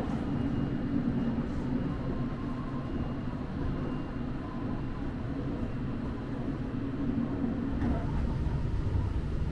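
Steady low rumble inside a moving Sunrise Izumo sleeper train (JR 285-series electric train): running noise and wheels on the rails, heard from inside a passenger car.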